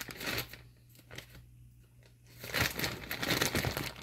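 Plastic bag rustling and crinkling as it is handled, in short bursts, loudest from about two and a half seconds in.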